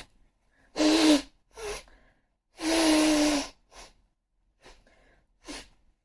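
A person's voiced sneezes: a sharp burst about a second in and a longer, drawn-out sneeze around three seconds in, followed by a few short, quieter breaths.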